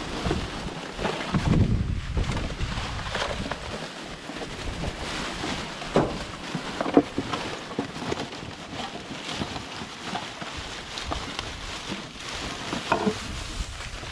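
Wind buffeting the microphone, with rustling and scattered sharp knocks and clicks as rubbish in a dumpster is rummaged through.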